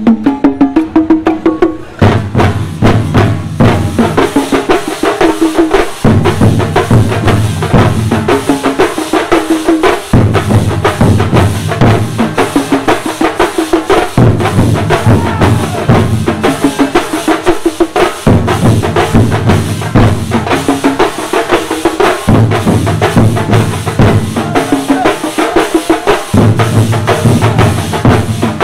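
A Kerala thambolam drum troupe plays rapid, dense drumming while marching. About two seconds in, a deep, bass-heavy tune joins it and repeats in phrases of roughly four seconds.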